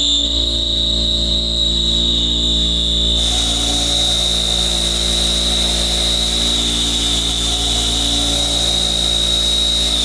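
A chipped end mill, missing a corner, full-slotting through 1018 steel in a CNC machining centre: a steady high-pitched whine over the running spindle. About three seconds in, a loud hissing cutting noise joins it and holds steady.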